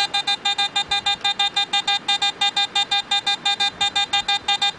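Garrett AT Gold metal detector sounding a fast, even train of short beeps of one pitch, about eight a second, as its double-D search coil is wiggled tightly back and forth over a target. The repeatable beeping is the sign that the coil is right on the target.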